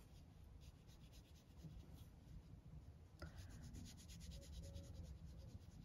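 Faint, quick, short strokes of a fine brush tip dabbing gouache onto watercolour paper, with a single click about three seconds in.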